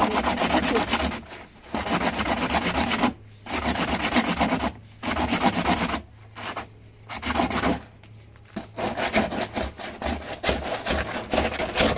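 A wood rasp worked by hand across a board in repeated strokes. The strokes come in runs of about a second, broken by short pauses. The board is being shaped into a curve so that a part fits in easily.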